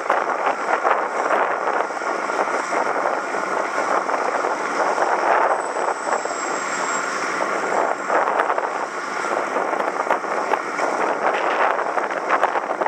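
Wind rushing over the microphone of a bicycle in motion, a steady noisy rush with constant small buffets.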